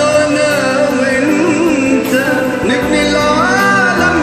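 A man singing over a karaoke backing track, his voice wavering on long held notes.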